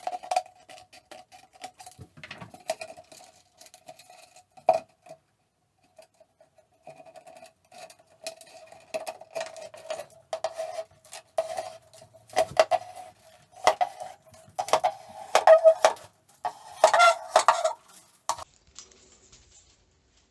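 Scissors cutting into a plastic bottle, then the bottle's wall being drawn past the blade of a homemade bottle cutter as a strip: the plastic squeaks and crackles against the blade in spurts. There is a short pause about five seconds in, and it stops suddenly near the end.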